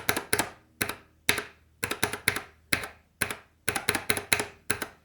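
Kailh Box Black linear keyboard switch on a switch tester being pressed and released over and over, giving sharp plastic clacks about two to three times a second, often in close pairs as the key bottoms out and springs back.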